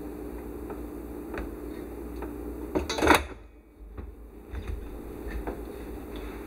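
A short, loud clatter about three seconds in, over a steady low hum and a few faint ticks.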